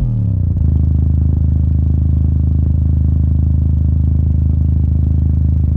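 Polk Audio PSW10 10-inch subwoofer playing a loud, low bass tone that glides briefly downward at the start and then holds steady, with a buzzy edge.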